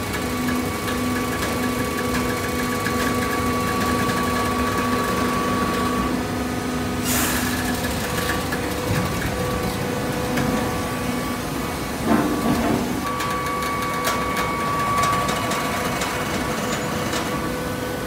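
Hydraulic horizontal baler running, its power unit humming steadily with several held tones, some of which drop away and come back partway through. A short sharp noise comes about seven seconds in and a louder knock around twelve seconds.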